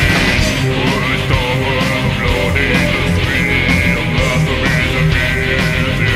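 Loud instrumental passage of black/death/doom metal: distorted electric guitars over steady drum hits, with no vocals.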